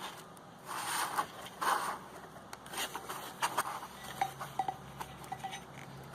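Handling noise as carbide lathe tools are taken out and set down: two rustling scrapes in the first two seconds, then a run of light clicks and a few short metallic clinks.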